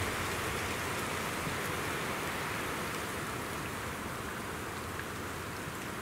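Steady rushing hiss of wind blowing through pine trees and over choppy lake water.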